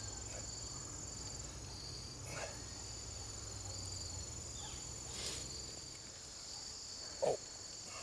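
Steady high chirring of crickets, with faint rustles of hands digging in loose garden soil and a brief low muffled sound near the end.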